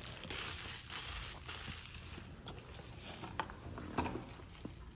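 Clear plastic wrapping crinkling as it is handled in the hands, with a few light clicks and rustles and one sharper click near the end.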